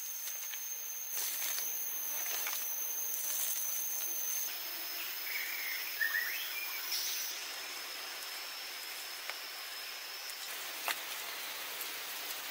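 Steady high insect drone over a hiss of outdoor ambience; the whine drops slightly in pitch about four seconds in and fades out near the end. A few short bird chirps come about halfway through, and a few soft sharp taps are scattered through.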